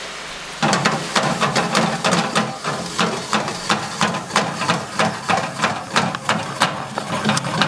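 Butter and brown sugar sauce with banana slices and banana liqueur sizzling in a stainless steel skillet on a gas stove. About half a second in, a rhythmic metal clatter starts, about three knocks a second: the skillet being shaken and stirred on the burner grate.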